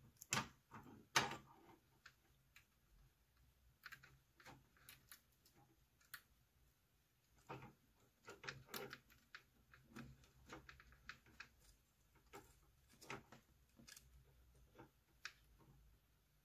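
Scattered small clicks and taps of jumper-wire connectors being pushed onto a circuit board's header pins, with two sharper clicks in the first second or so and softer ones irregularly after.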